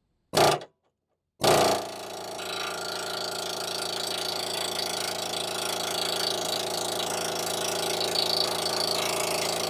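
Pneumatic air hammer with a punch bit, fired in a short blip about half a second in, then running continuously and loudly from about a second and a half in, hammering out the cut-off stub of a seized sway bar end link stud.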